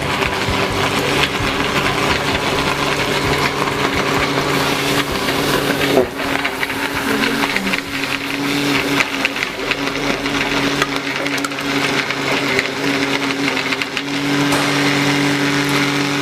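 Grinder pump's electric motor running steadily, a steady hum with a rough noise over it. There is a single sharp knock about six seconds in, and the hum gets a little louder near the end.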